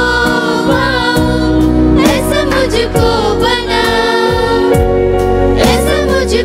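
Small group of women singing a Hindi gospel song together, accompanied by an electronic keyboard holding steady low notes.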